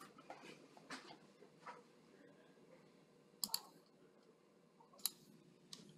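Scattered computer mouse clicks: a few faint ones in the first two seconds, then sharper double clicks about three and a half seconds in and again near the end, over faint room hum.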